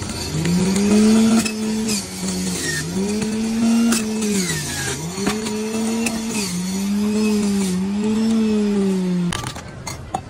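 Electric centrifugal juicer running on pineapple. Its motor hum drops in pitch four or five times as the fruit is pushed in and loads it, then climbs back. The motor stops suddenly near the end.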